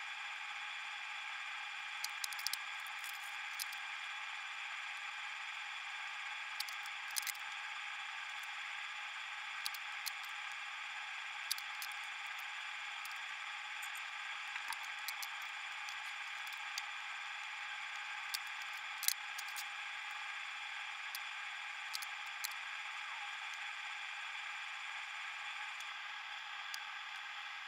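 A steady hum with several faint tones, under scattered small clicks and taps of a soldering iron tip and tools against the pins of an amplifier's Darlington power pack during desoldering.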